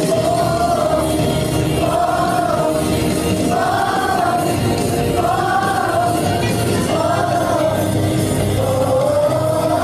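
A class of schoolchildren singing a song together over instrumental backing, the sung phrases rising and falling in arcs, a new one about every second and a half.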